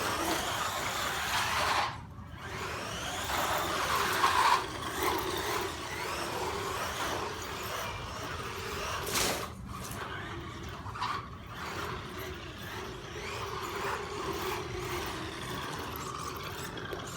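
Electric RC monster truck driving, its motor whining up and down with throttle over a steady noise of tyres and drivetrain, cutting out briefly twice, with a sharp knock about nine seconds in.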